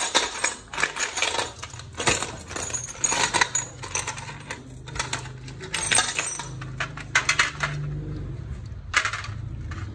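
Metal tools clinking and scraping against a motorcycle's gear shift lever and its bolt as it is unfastened: a quick, irregular run of sharp metallic clicks that thins out in the second half, with a low hum underneath.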